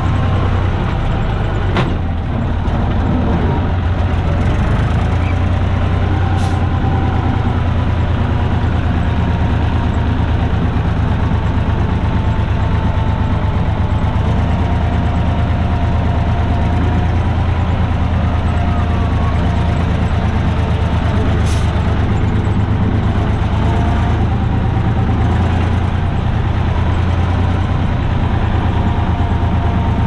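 Farm tractor's diesel engine running steadily while it tows a loaded trailer-spreader, with an even low drone. A few sharp knocks or rattles break through, about two seconds in, around six seconds and about twenty seconds in.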